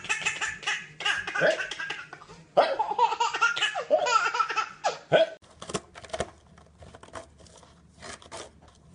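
A toddler laughing loudly in repeated high-pitched bursts. About five seconds in the laughter stops and gives way to faint scattered clicks.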